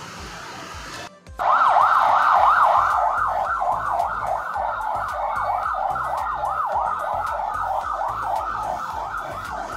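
A siren in a fast yelp, its pitch rising and falling about four to five times a second at a steady level. It starts suddenly about a second and a half in, after a moment of quieter background noise.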